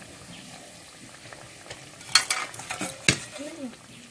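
Khaja pastries deep-frying in hot oil in a kadai, a faint steady sizzle. About two seconds in, a metal utensil scrapes and knocks against the kadai a few times as the pastries are turned, one knock louder than the rest.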